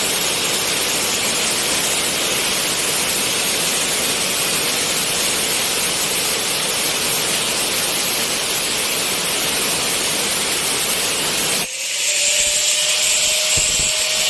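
Angle grinder cutting, a loud steady grinding hiss. Near the end the sound changes abruptly to a thinner, higher whine with a steady tone.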